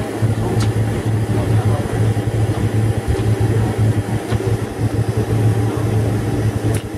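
Cabin noise of a Boeing 747-400 rolling out on the runway just after touchdown: a loud, steady rumble of engines and wheels with a strong low hum. A few faint ticks can be heard.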